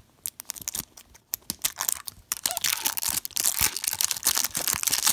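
Plastic wrapping of an LOL Surprise ball being peeled and torn off by hand: a few scattered crinkles at first, then continuous crinkling and crackling from about two seconds in, getting louder.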